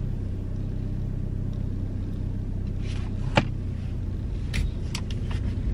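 Steady low rumble of a car, heard from inside the cabin. A single sharp click comes a little past halfway, with a few faint ticks about a second later.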